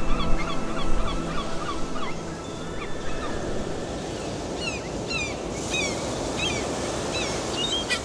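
A flock of seabirds calling: many short, hooked cries overlapping, over a steady rushing noise. Music with long held notes fades out during the first two seconds or so.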